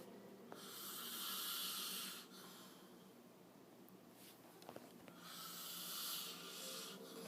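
A man snoring in his sleep: two long, breathy snores, each about a second and a half, roughly four seconds apart.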